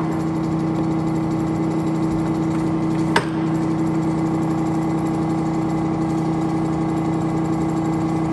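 Monarch geared-head engine lathe running under power: a steady hum from the motor and headstock gearing, with one sharp click about three seconds in.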